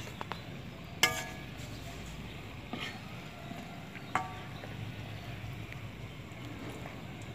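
Thekua frying in hot oil in a metal wok, a steady low sizzle, with a metal utensil clinking against the pan three times. The loudest clink comes about a second in and rings briefly.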